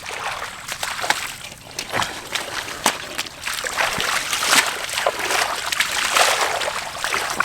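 Shallow water being splashed and sloshed about, with many short sharp splashes at irregular intervals, as water is churned while catching fish in a shallow pool.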